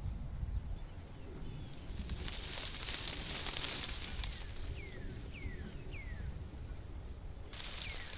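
Countryside ambience: a bird gives short whistled calls that slide downward, three in quick succession past the middle and one more near the end. Under them run a steady thin high tone and a low rumble.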